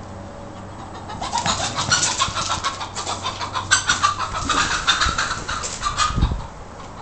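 Rooster in a flurry of rapid wing flapping and alarm squawks, starting about a second in and stopping suddenly after about five seconds, as it flees a chasing cat.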